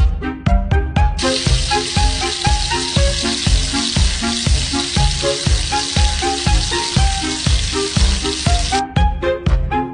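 Background music with a steady deep beat and short pitched notes. From about a second in until near the end, a dense, even hiss sizzling like frying lies over it and then cuts off suddenly.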